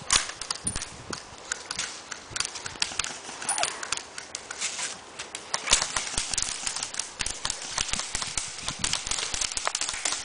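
Airsoft guns firing single shots: an irregular run of sharp snaps, several a second at times, with no full-auto bursts.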